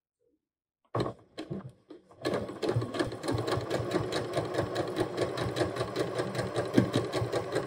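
Computerized sewing machine, started with its start/stop button about two seconds in, stitching steadily at a fast, even rate through the fabric of a waistband. A few short clicks and fabric rustles come just before it starts.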